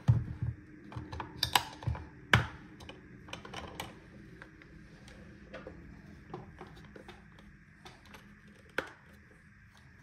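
Hard plastic clicks and knocks from handling a Dirt Devil Scorpion handheld vacuum on a wooden desk, with the loudest knocks in the first few seconds, then scattered light taps and one sharper tick near the end.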